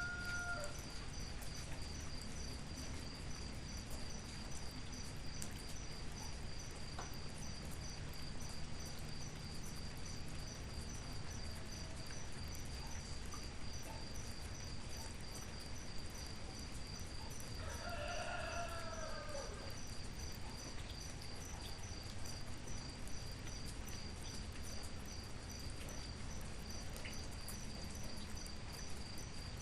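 Steady rain hiss with a cricket's high, evenly pulsing trill running throughout. A rooster crows once, about two-thirds of the way in, and the tail of another crow ends just after the start.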